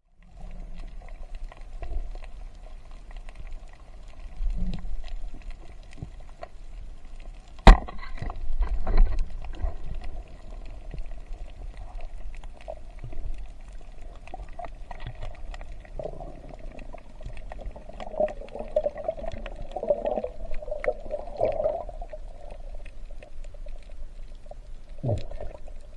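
Underwater sound heard through a camera's waterproof housing: muffled water noise with gurgles and small clicks over a steady hum, and one sharp knock about eight seconds in.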